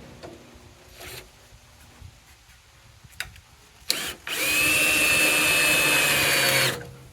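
Screw gun driving a screw through a pressure-treated wood strip: after a short blip, the motor runs steadily at one pitch for about two and a half seconds near the end, then stops.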